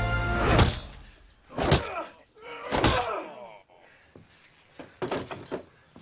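Three heavy blows of a metal trophy statuette striking a person, about a second apart, each a loud sudden impact with a short ringing tail. Fainter, sharper knocks follow near the end.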